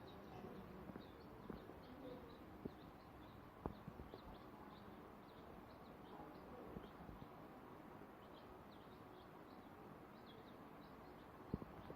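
Day-old chicks peeping, many short high cheeps overlapping, faint, with a few soft knocks.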